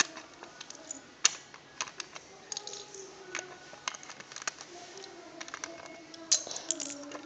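Lego bricks clicking as they are picked from a pile and pressed onto a model: irregular sharp clicks, a sharper snap about a second in.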